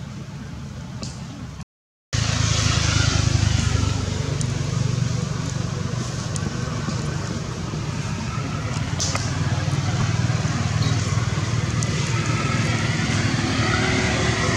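A steady low engine rumble, like a motor vehicle running close by, which starts after a brief drop-out to silence about two seconds in.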